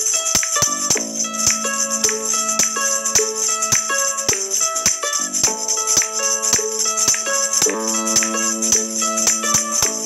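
Music with a steady beat: evenly spaced percussive hits, a bright jingling high percussion throughout, and held pitched notes that change every second or so.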